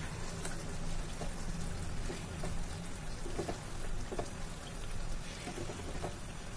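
Oily masala gravy crackling and sputtering at a simmer in a nonstick frying pan, with a few soft scrapes of a wooden spatula as the fish pieces are turned over.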